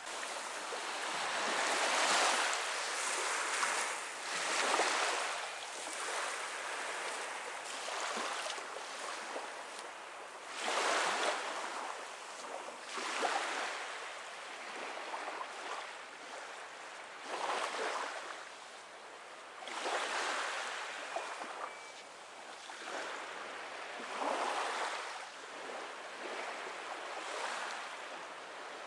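Small sea waves lapping on a sandy beach, each wash swelling and falling away every few seconds.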